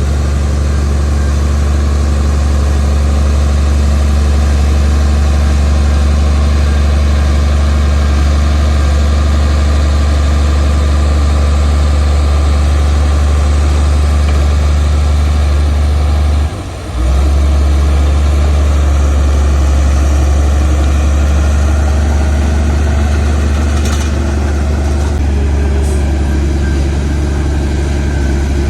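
Heavy diesel earthmoving machinery running steadily, with a deep, constant low drone. The sound drops out for a moment a little past halfway, then carries on as before.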